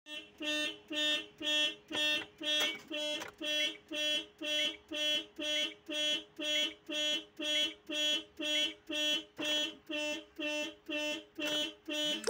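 Car's electronic indicator buzzer beeping about twice a second with a two-tone beep, in time with the flashing hazard/turn-signal lights.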